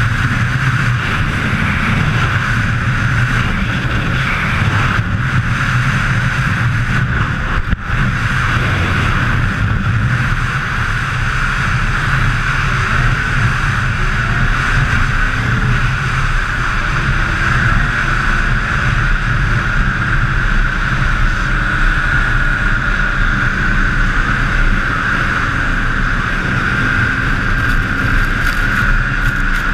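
Snowmobile engine running steadily at speed, heard from the rider's seat: a constant low drone with a steady high whine over it, with a brief dip about eight seconds in.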